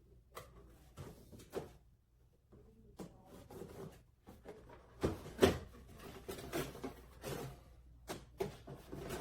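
Handling and unpacking a plastic toy set: scattered clicks, knocks and rustling of packaging, busier and louder from about five seconds in.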